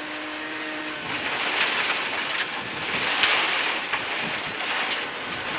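Rally car at speed on a loose gravel stage: a steady hiss of gravel spraying against the underbody and wheel arches, with sharp stone hits, over a steady engine note. The loose gravel comes from too many loose stones on the road.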